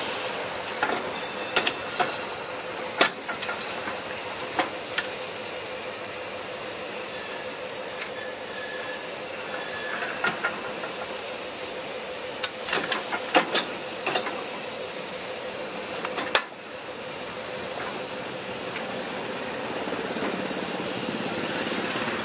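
Metal clanks and knocks from a hand-operated QMR2-40 interlocking brick press as its long steel lever is raised and pulled down: scattered sharp knocks, a quick cluster of them past the middle, and the loudest single knock about sixteen seconds in. A steady hiss and faint hum run underneath.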